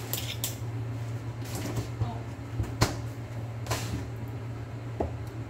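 A few sharp clicks and knocks of kitchen containers and utensils being handled on the counter, with a brief rushing noise about two-thirds of the way in, over a steady low hum.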